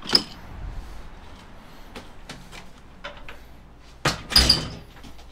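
A door being opened and shut: a sharp clack at the very start, fainter knocks, then a louder pair of bangs about four seconds in.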